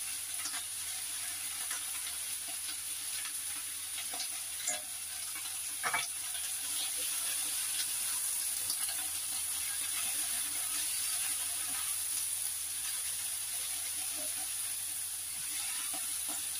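Vegetables frying in oil in a stainless steel frying pan on a gas stove, a steady sizzle while they are stirred with chopsticks, with a couple of short knocks of the chopsticks on the pan about five and six seconds in.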